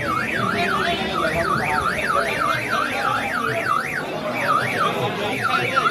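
Electronic warning siren of a battery-operated platform cart warbling rapidly up and down, about three sweeps a second, breaking off briefly twice near the end, over crowd chatter.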